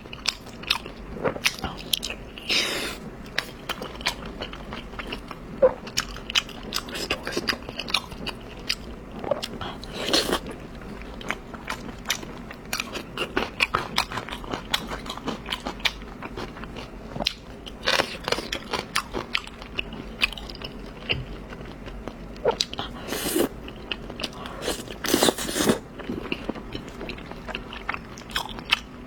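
Close-miked mouth sounds of someone biting and chewing beef tendon: many small irregular clicks, with a few louder bursts about ten seconds in and near the end.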